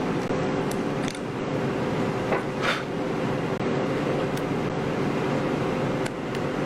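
Steady background hum with two steady tones, and a few faint light taps and scrapes about one and two and a half seconds in.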